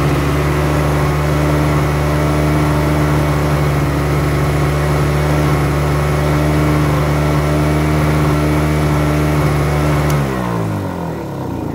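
Yamaha ET500 two-stroke portable generator engine running steadily and smoothly, then switched off about ten seconds in: a click, and its note falls as the engine spins down.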